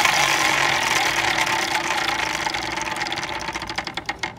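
Spinning prize wheel, its flexible pointer flicking against the wooden pegs on the rim in a rapid clatter. The clicking slows into separate clicks as the wheel runs down, then stops near the end.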